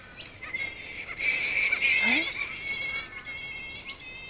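Flying fox colony chattering and squabbling: many short, shrill, repeated calls overlapping, loudest for about a second starting about a second in.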